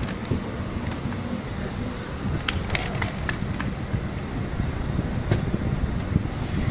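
Low, steady rumble of a passenger train at the platform, with a quick run of sharp metallic clicks about two and a half to three and a half seconds in.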